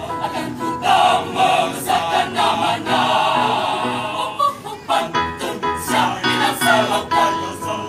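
Mixed choir of women's and men's voices singing; held chords for the first half, then after a brief dip a little past halfway, shorter, more rhythmic phrases.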